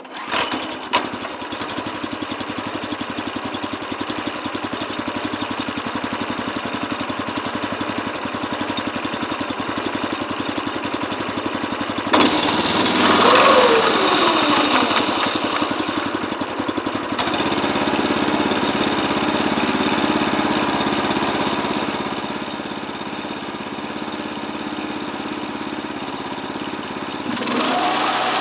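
Small gasoline engine of a homemade bandsaw sawmill running steadily after starting abruptly. About twelve seconds in it gets louder, with a whine that falls in pitch over the next few seconds, then it settles back to steady running.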